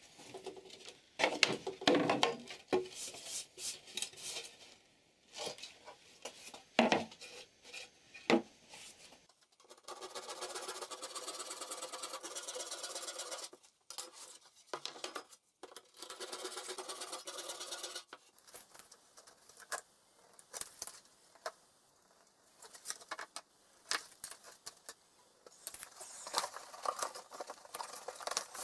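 Wooden chipboard furniture panels being handled and knocked against each other, with sharp clatters in the first several seconds. Then a steady, even rubbing noise, in two stretches of about four and two seconds. Near the end comes light rustling and clicking as a cardboard box is opened.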